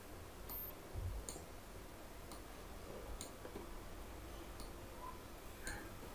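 A handful of faint, scattered computer mouse clicks as objects are selected and dragged, over a low background hum.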